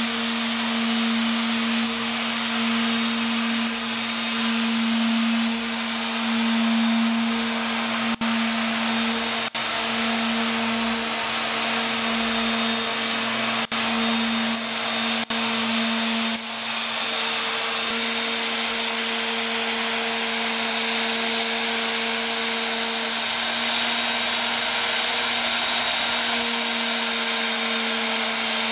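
Cotech wood router running as the spindle of a homemade CNC machine, its 4 mm two-flute endmill cutting through 12 mm MDF: a steady high whine with cutting hiss. There are a few very brief dropouts in the middle.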